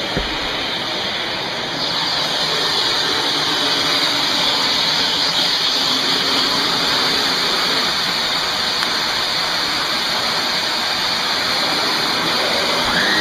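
Shark NV356E Navigator Lift-Away upright vacuum running with suction through the bare hose: a steady rush of motor and air that gets louder about two seconds in, then holds.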